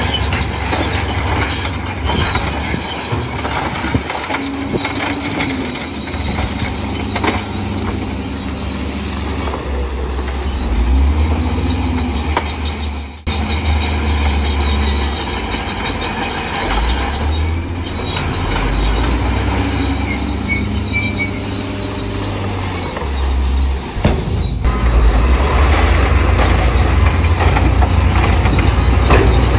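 Heavy diesel earthmoving machinery working: a loud, deep engine drone with intermittent high metallic squeals, broken by a couple of abrupt breaks.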